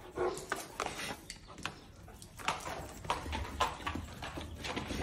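A dog moving about, heard as a run of irregular clattering clicks and knocks.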